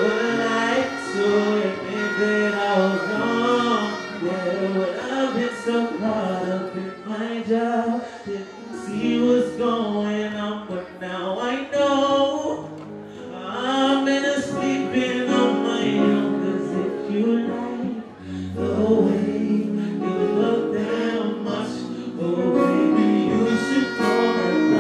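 Live band music with a man singing a slow song into a microphone over the stage sound system.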